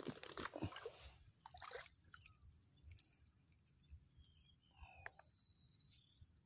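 Near silence, broken at the start by a sharp splash in water followed by a few faint sloshes and drips over the next two seconds.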